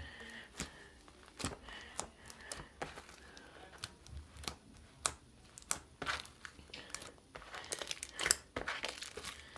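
Butter slime being kneaded and stretched by hand, with irregular sticky clicks, snaps and small tearing sounds as it pulls apart.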